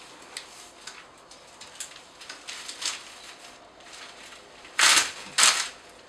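Dry broomcorn straw rustling and crackling as bundles are worked by hand for broom making, with two louder, brief swishes about five seconds in.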